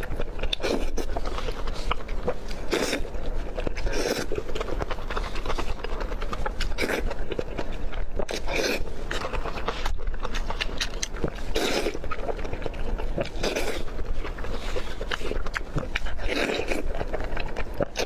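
Close-miked eating sounds of someone eating marinated raw oysters: repeated chewing and biting, a burst every second or two with small clicks between.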